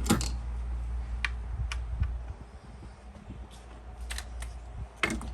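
Sharp clicks and light metal knocks of tools and parts being handled during teardown of a 1973 Yamaha RD350 engine. The loudest click comes right at the start and the rest are scattered a second or so apart, over a low steady hum.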